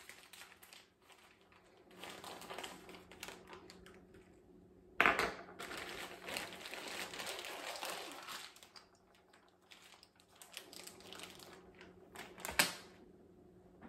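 A plastic bag of brown sugar crinkling and rustling in bursts as it is handled, with a sharp knock about five seconds in and another near the end.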